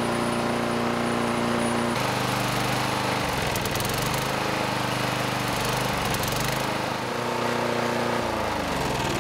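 Small single-cylinder lawn mower engine running steadily at about 3,500 rpm, with antifreeze mist being sprayed into it. Near the end the engine slows and its pitch falls as it winds down.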